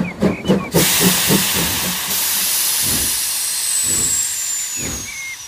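Cartoon steam-train sound effect. A few quick chugging puffs stop under a second in, and then a long hiss of released steam follows as the train comes to a halt, slowly fading.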